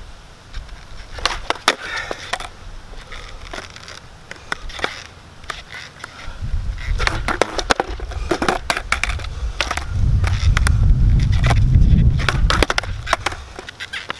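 Skateboard on asphalt during kickflip attempts: a run of sharp clacks and slaps as the deck and wheels hit the ground, with a low rumble, loudest about ten seconds in.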